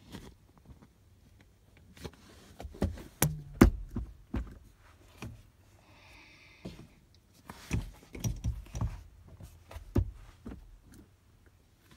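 Irregular knocks, clicks and thumps inside a car cabin, bunched about two to four seconds in and again from about eight to ten seconds in, over a faint low steady hum.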